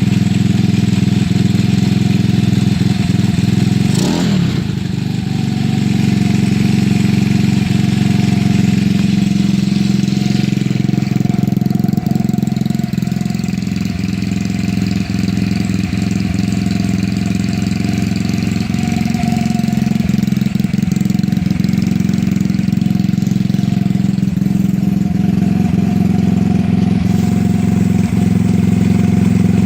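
Honda Ruckus's GY6 150cc four-stroke single-cylinder scooter engine idling steadily, with a brief dip about four seconds in.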